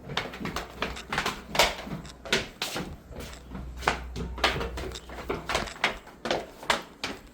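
Irregular knocks, clunks and clicks of objects being handled and set down, about three a second, some of them sharp.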